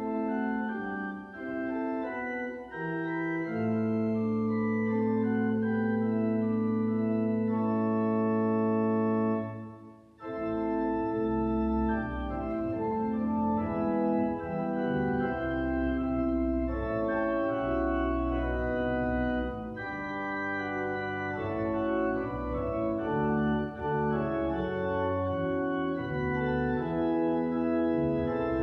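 Church pipe organ playing a hymn in full chords. A long chord is held, the sound breaks off briefly about ten seconds in, and the next verse begins with deep pedal bass notes underneath.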